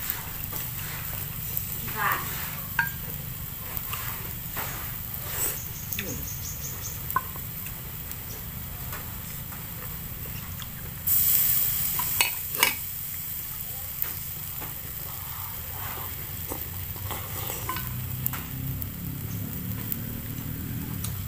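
Hot pot broth sizzling and bubbling on the stove, with chopsticks stirring and clicking against the pot and bowl. A loud hiss of about a second comes near the middle.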